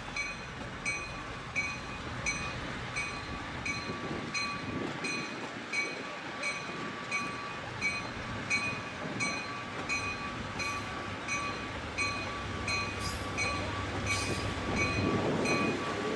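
Nebraska Zephyr stainless-steel streamliner cars rolling past with a steady low rumble, while a bell rings evenly about three times a second. Near the end the rumble grows louder as the Burlington E5A diesel-electric locomotive draws near.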